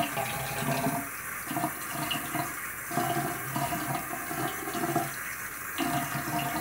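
Bathroom sink faucet running, its stream splashing over a wet kitten and the hands rinsing it in the basin. The splashing grows and eases in stretches of about a second as the hands move.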